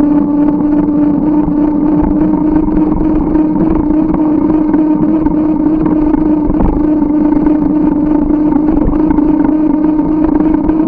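Noise of a moving bicycle picked up by a camera mounted on it: a steady hum of constant pitch over a low rumble of road and wind.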